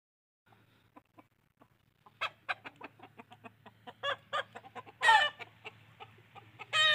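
Chickens clucking: a run of short clucks at about three to four a second from about two seconds in, with two louder, longer calls about five and seven seconds in.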